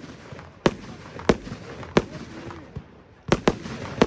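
Röder 'Let's Fetz' firework battery firing shots that burst into crackling stars: a sharp bang about every two-thirds of a second, a pause, then a quick pair of bangs and one more near the end.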